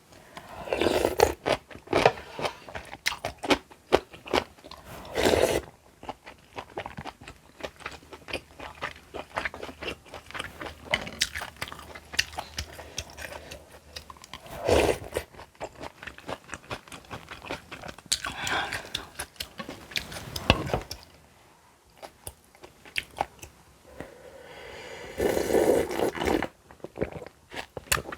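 Close-miked eating: a person chewing and biting into crunchy food, with many sharp crunches and several louder bursts of crunching.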